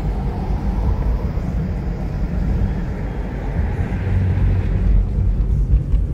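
Road and engine noise heard inside a moving car: a steady low rumble of tyres and engine, growing a little louder about four to five seconds in.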